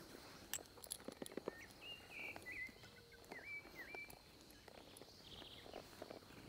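Quiet outdoor ambience: scattered small clicks and shuffles from a saddled horse standing with its rider. About a second and a half in, a bird whistles a short run of quick, bending notes. A steady high insect tone runs underneath.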